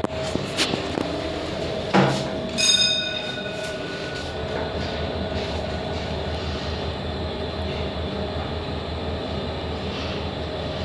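Otis passenger lift car travelling upward: a steady running hum and drone of the lift in motion. About two seconds in there is a sharp click, followed by a brief ringing tone.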